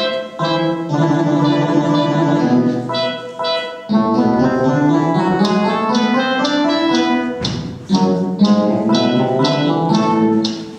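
Instrumental music with a bright, plucked-sounding melody of separate, sharply struck notes, pausing briefly twice.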